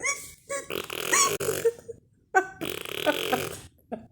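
A ten-month-old baby making playful vocal noises: several short squeaky calls, some rising in pitch, and a longer throaty sound about halfway through.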